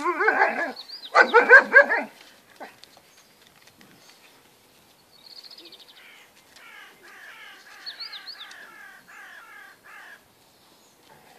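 Alaskan Malamute giving two loud, wavering whining howls in the first two seconds, the pitch wobbling up and down. Fainter runs of quick high chirping notes follow later.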